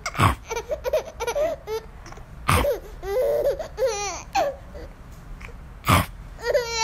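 Baby laughing and babbling in short runs of high, rising and falling squeals, with a few sharp breathy bursts in between.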